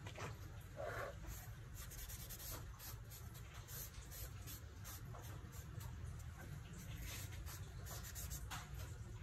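Charcoal and fingertips scratching and rubbing on drawing paper in many quick short strokes, over a steady low hum.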